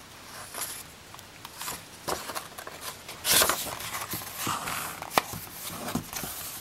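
Page of a hardcover picture book being turned: a paper swish about three seconds in, with light rustles, a sharp tick and taps of hands on the paper and cover around it.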